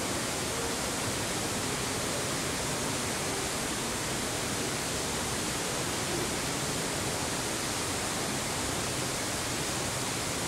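Steady, even rushing noise with no distinct events, constant in level throughout.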